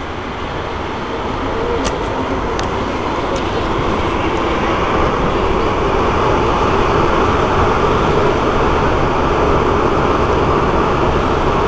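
Alstom MPM76 rubber-tyred metro train running, a continuous rumble that grows louder over the first few seconds and then holds steady.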